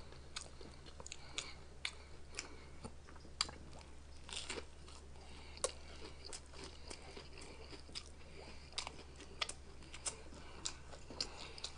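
A person biting into and chewing a fried fish sandwich: faint, irregular wet mouth clicks and smacks, with finger-licking smacks near the end.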